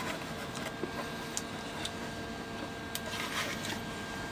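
Light handling sounds: a few faint clicks and a brief rustle about three seconds in as a flat plastic antenna panel with a metal bracket is turned over in the hands, over a faint steady hum with a thin whine.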